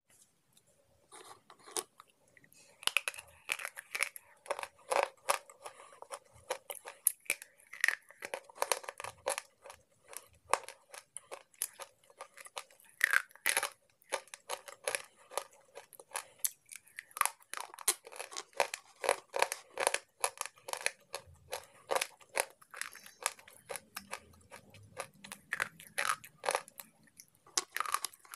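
Slate pencils being bitten and chewed: a dense run of sharp, crisp cracks and crunches, with a couple of short pauses.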